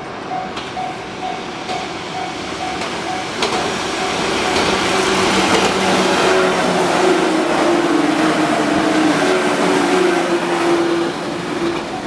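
Level-crossing warning bell ringing in a steady on-off pulse while a KuMoYa 145 and 113 series electric train approaches and passes. The train's running noise builds to a peak about six to ten seconds in, drowning the bell, then eases off near the end.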